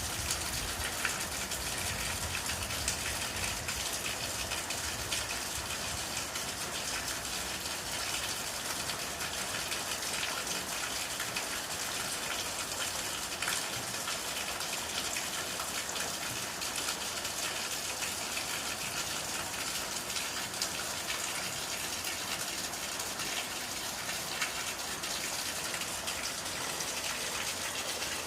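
Steady rush of water, floodwater or heavy rain, with a low rumble during the first few seconds.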